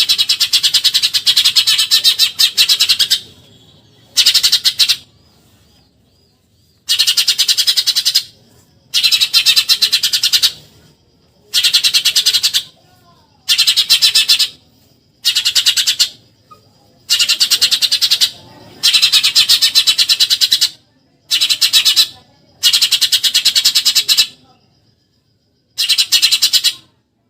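Eurasian tree sparrow (burung gereja) giving rapid, shrill chattering bursts, the 'nyerecet' rattle used as a training call for songbirds. About a dozen bursts of fast repeated notes, each a second or two long, with short pauses between.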